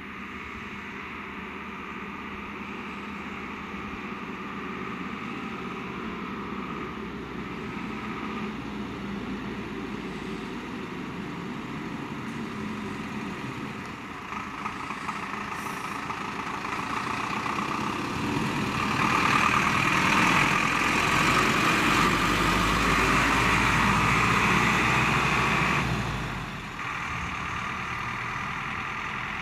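Mercedes-Benz fire engine's diesel engine running as the truck rolls slowly closer, growing louder and loudest as it passes, then dropping off suddenly as it moves away.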